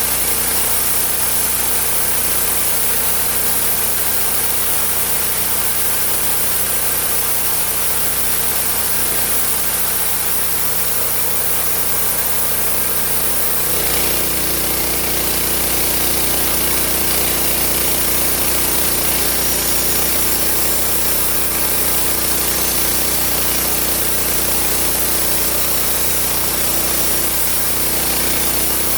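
Homemade sawmill running steadily, its engine driving the blade through wood; the running note shifts slightly about halfway through.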